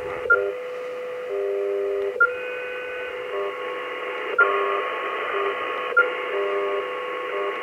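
Kenwood TS-590 transceiver's speaker playing a steady 500 Hz heterodyne tone, the beat of the WWV 10 MHz carrier, with WWV's own tones coming and going over it. A short high beep and click sound four times as the radio is switched between its A and B VFOs. The heterodyne sounds the same on both VFOs, the sign that the reference oscillator is dialed in on frequency.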